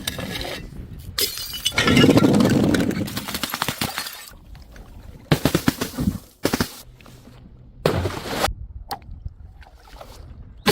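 Glass bottles smashing and shattering, several crashes in a row with tinkling, rattling fragments after each; the loudest and longest comes about two seconds in.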